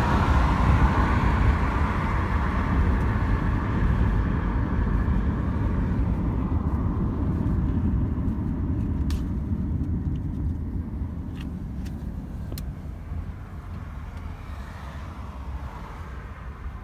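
A low, steady rumble that slowly fades, with a few brief clicks about nine to thirteen seconds in.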